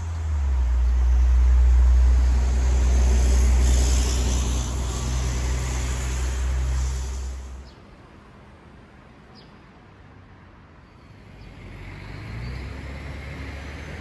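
Low, steady rumble of road traffic, loud for the first seven or so seconds, then dropping suddenly to a faint hiss, with a low rumble coming back near the end.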